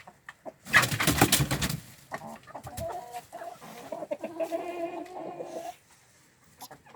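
Domestic chickens in a coop: a loud rustling burst about a second in, then a drawn-out clucking call lasting about three seconds.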